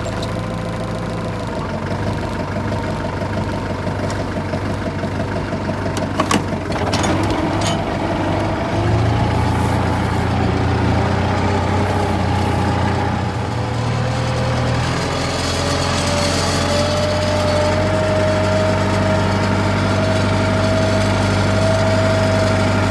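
A vehicle engine running steadily, with a few sharp clicks about six seconds in. A tone rises slowly in pitch through the second half as the engine picks up speed.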